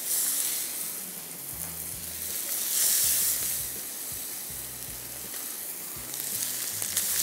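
Marinated chicken breast fillets sizzling as they are laid into hot shallow oil in a frying pan. The sizzle swells about three seconds in and again near the end as more meat hits the oil.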